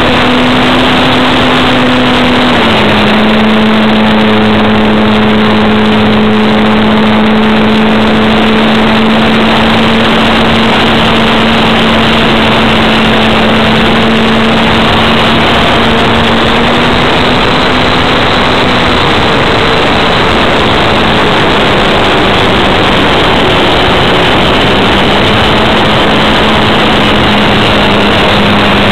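RC model Cessna's motor and propeller running steadily in flight, heard close up through the onboard camera's microphone over heavy wind rush. The drone steps down slightly in pitch about three seconds in and wavers a little later on.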